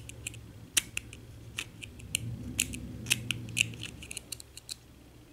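Small metal tool clicking and scraping against a padlock cylinder's retaining clip as the clip is worked loose. The clicks are sharp and metallic and come at irregular intervals.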